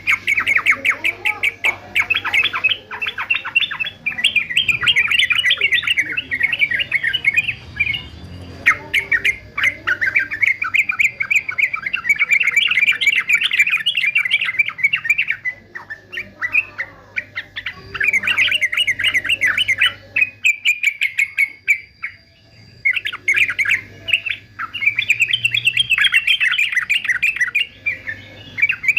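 Male yellow-vented bulbul singing long bouts of fast, chattering, squawky notes, with short breaks about 8, 16 and 21 seconds in.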